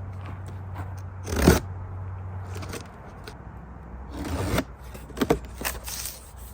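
Cardboard box being cut and opened: loud scraping and ripping of cardboard and packing tape, twice, followed by a few short clicks and knocks. A steady low hum underneath stops about three seconds in.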